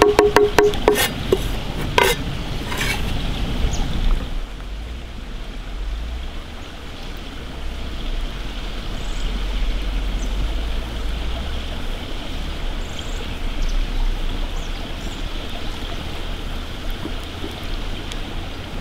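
A chef's knife chopping on a wooden board: a quick run of sharp taps in the first few seconds. After that, a steady low rumble of an open campfire and wind on the microphone, with faint scattered crackles.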